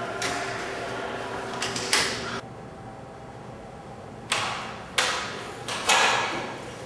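A door knocks shut about two seconds in. Then, from about four seconds in, the metal push-bar latch of a double door clacks several times as the door is pushed open, each knock ringing out briefly, the last the loudest.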